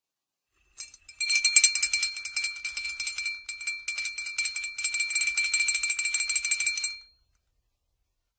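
Cartoon sound effect: about six seconds of fast, high rattling and jingling with a steady high tone running through it, like a shaken rattle or tambourine. It starts abruptly, dips briefly twice and stops suddenly.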